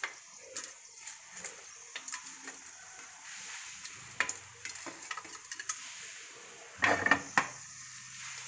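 Whole spices dropping into warm ghee in an aluminium pressure cooker and being stirred, with a faint sizzle and scattered clicks of spices and a spoon against the metal pot. A louder clatter about seven seconds in.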